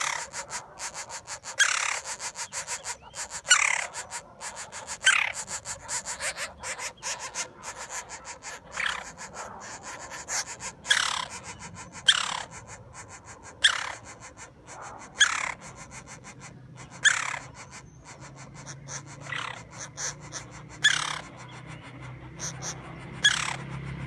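Woodpecker chick, a green-barred woodpecker, calling from its nest hole in a tree: a short, sharp call that falls steeply in pitch, repeated about every one and a half to two seconds.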